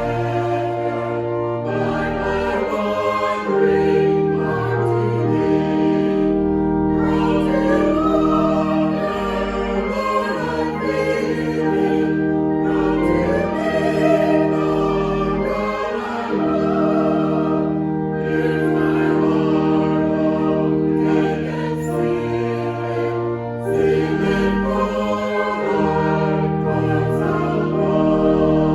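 Choir singing a hymn over sustained organ chords.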